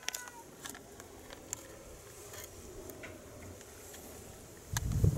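A cat's meow trails off right at the start, falling in pitch. Faint scattered ticks and clicks follow. Near the end a loud, low rumble sounds close on the microphone.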